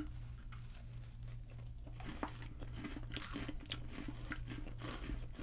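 Two people chewing sugar cookies close to the microphones, with faint, irregular crunches mostly from about two seconds in, over a steady low hum.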